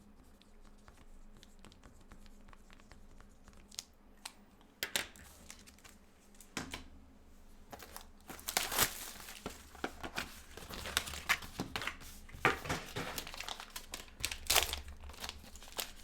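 Trading card pack wrapper being handled and torn open, with a few sharp clicks at first and then dense crinkling and tearing through the second half.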